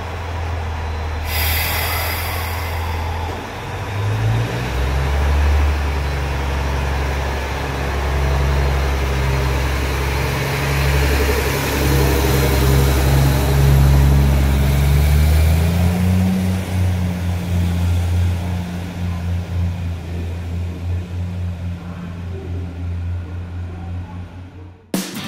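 HC85 hybrid diesel railcar's engine running after start-up, a steady low drone with a short hiss about a second in. The engine note rises in pitch twice, near four seconds and again past the middle, then grows weaker and unsteady as the train pulls away.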